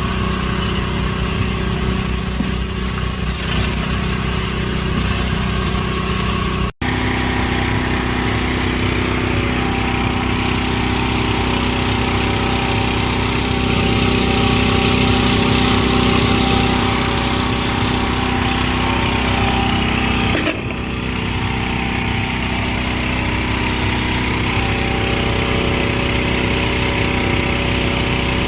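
Pressure washer engine running steadily under the hiss of the spray, with a momentary dropout about seven seconds in.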